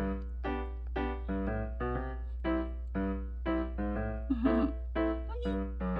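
Background piano music playing a steady run of notes, about two a second. About four seconds in, a brief wavering cry rises and falls over the music, likely from the cat.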